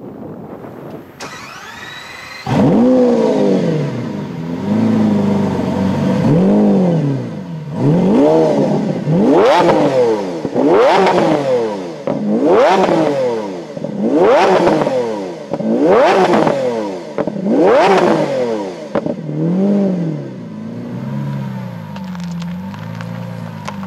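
Lamborghini Aventador LP760-4 Dragon Edition's 6.5-litre V12 starting: a short starter whine, then the engine catches with a loud flare about two and a half seconds in and settles to a high idle. It is then revved hard on the spot, a string of about eight sharp revs roughly a second and a half apart, before dropping back to a steady idle near the end.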